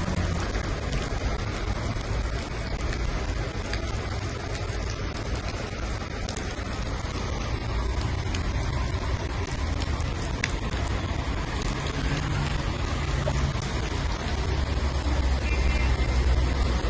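Steady rain falling, with a low rumble of traffic underneath.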